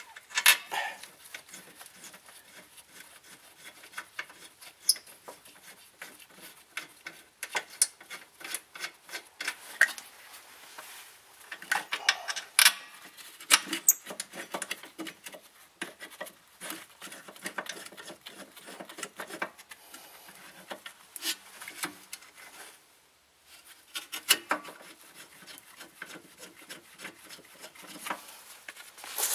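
Irregular metal clicks, clinks and scraping as a rear brake caliper mounting bracket is worked into place and its bolts are started by hand.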